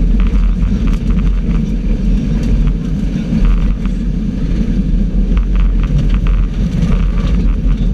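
Subaru rally car's flat-four engine running hard at speed, heard from inside the cabin, with loose gravel ticking and clattering against the underbody throughout.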